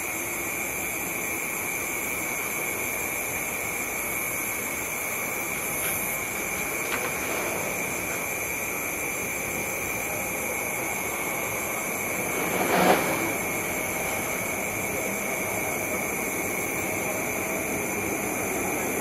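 Jet airliner on approach, heard as a steady distant rumble, with steady high-pitched tones above it. About thirteen seconds in comes a brief louder rushing swell.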